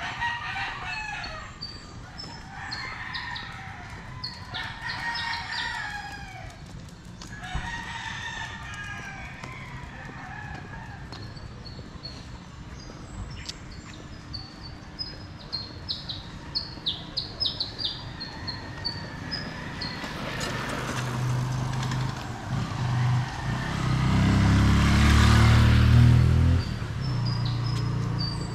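Roosters crowing several times, with small birds chirping in quick high notes. Near the end an engine grows loud as a vehicle passes close by, then drops away.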